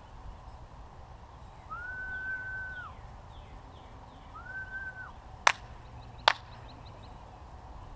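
A long, even whistled note held about a second, then a shorter one, followed by two sharp cracks about a second apart.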